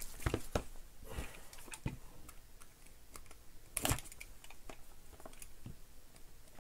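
Light clicks and taps of hands handling a cardboard trading-card hobby box, with one sharper knock about four seconds in.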